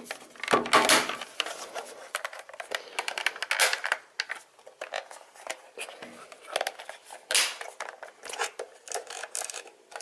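Plastic clicks and scrapes of a car's HVAC control panel housing being handled and pressed together, its snap-fit clips seating around the edge. The clicks are short and scattered, with a denser cluster about a second in.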